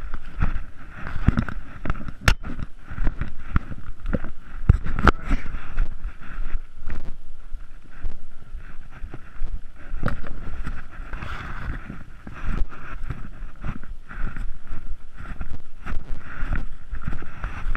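Footsteps and brush rustling and scraping against a handheld action camera while hiking through thick undergrowth: irregular thumps and rustling.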